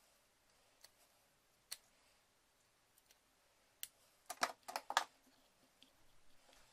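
Sharp clicks and taps of small hand tools, pliers working at a MagSafe charger cable. A few single clicks come first, then a quick run of louder clicks between about four and a half and five seconds in.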